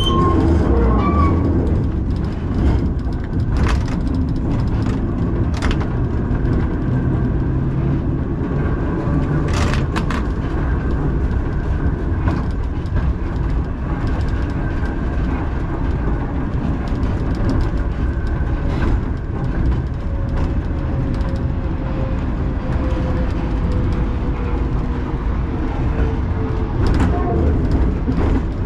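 Two-axle vintage museum tram running on its rails: a steady rumble with scattered clicks and knocks from the wheels and running gear, and a faint whine that falls slowly in pitch in the second half.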